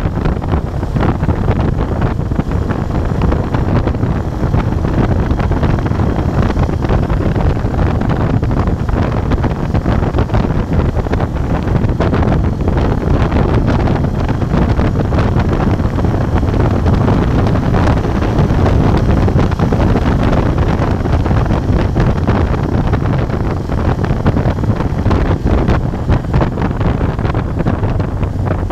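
Wind buffeting the microphone on a moving motorcycle, loud and steady, with the Moto Guzzi Bellagio's V-twin engine running underneath at a steady road speed.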